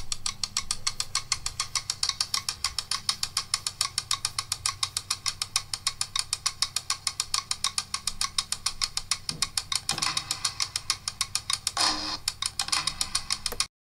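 Intro music built on a fast, even ticking of about six clicks a second over a steady low drone, with a few louder swells near the end. It cuts off suddenly just before the end.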